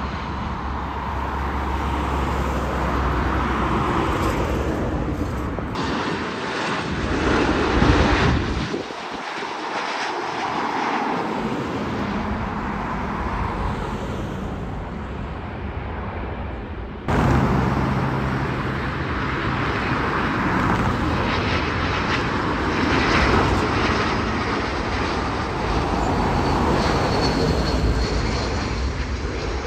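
Twin-engine jet airliners landing: a steady loud rush of jet engine noise as each one touches down. The sound changes abruptly a few times, sharpest about 17 seconds in, as it jumps from one landing to the next.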